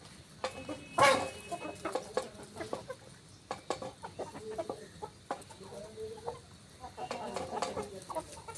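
Desi chickens clucking, with a louder call about a second in and scattered short taps between the calls.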